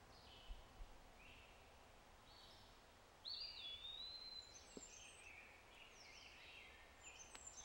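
Faint birdsong over quiet outdoor ambience: scattered high chirps and whistles, the clearest a longer whistle about three seconds in.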